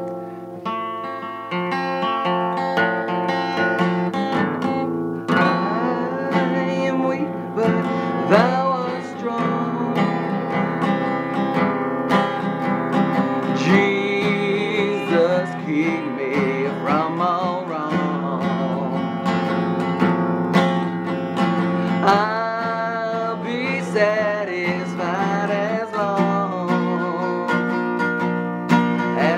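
Acoustic guitar playing a hymn accompaniment, with a wavering melody line over the chords.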